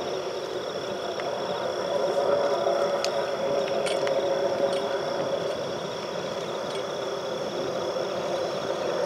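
Distant rocket noise from the Atlas V's RD-180 booster engine reaching the viewing site: a steady rushing rumble that grows a little louder about two seconds in, with a few brief crackles. A steady high insect trill runs underneath.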